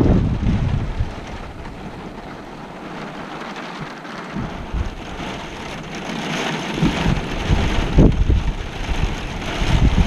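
Steady rain, with low rumbling swells just after the start and again through the last few seconds.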